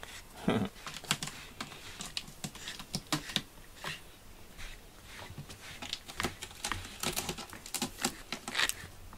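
A rubber grooming brush stroking through a cat's fur: a run of quick, irregular scratchy taps and brush strokes.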